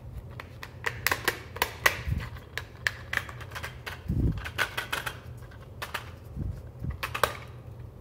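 Screw-on plastic cable gland cap of a blue splash-proof CEE industrial connector being twisted off by hand: a run of irregular sharp plastic clicks and ticks with a few soft low bumps of handling, stopping shortly before the end.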